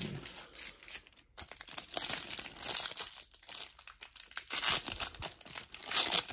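Foil wrapper of a 1991 Pro Set golf card pack crinkling and tearing as it is worked open by hand. Soft at first, the crinkling turns continuous after about a second and a half and is loudest near the end.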